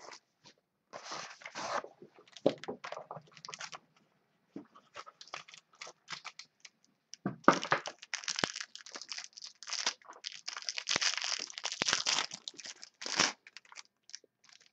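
Clear plastic wrapping around trading cards being torn open and crinkled by hand. It comes in irregular bursts of crackling, sparse at first and then thick and louder through the second half.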